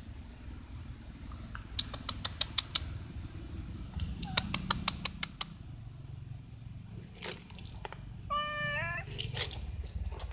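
A stray cat gives one short meow with a wavering pitch about eight seconds in, the begging call of a cat waiting for food. Before it there are two quick runs of sharp clicks.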